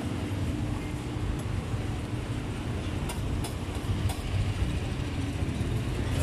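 Steady low rumble of road traffic, with a few light clicks about halfway through as skewered bananas are set down on the grill.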